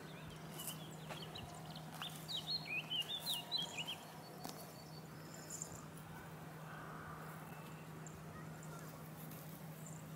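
A small songbird twittering in a quick run of short chirps for the first four seconds or so, over a steady low hum and faint outdoor background.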